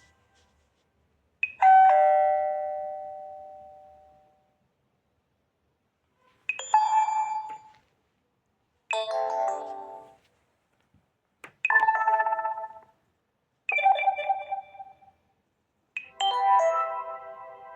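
Alcatel Pixi 3 (4) stock phone tones played one after another: six short chimes and jingles, each a second or two long, with silence between. The first is a single bell-like chime that rings out and fades over about two seconds.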